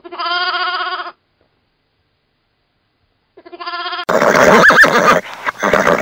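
A sheep bleats twice, the first call about a second long and the second shorter, both with a wavering pitch. About four seconds in, a horse whinnies, louder than the bleats.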